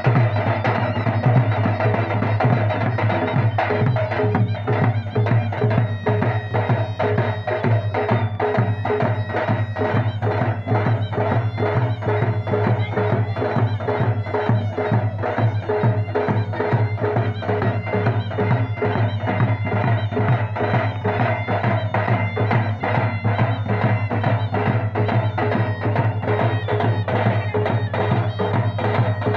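Live traditional drumming: a large stick-beaten drum and other drums played in a fast, unbroken rhythm, with steady held melody tones sounding over them.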